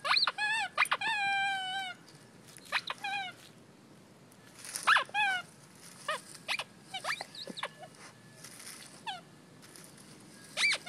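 A dog whining: a quick run of short, high whines that slide down in pitch, then more spaced-out whines, with a last one near the end.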